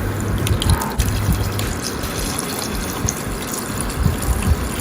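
Milk pouring steadily into a pan of chicken cooking in ghee.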